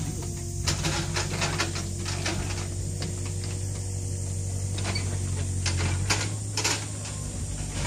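A machine's engine running steadily at one pitch, with irregular sharp clanks and knocks over it throughout.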